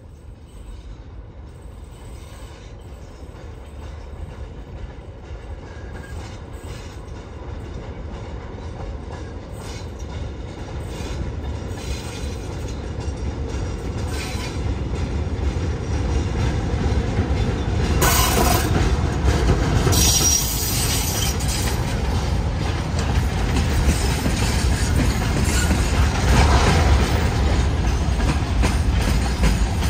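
A train on Romanian railway track comes closer, growing steadily louder over about the first eighteen seconds, then stays loud as it runs by. Its wheels click over the rail joints.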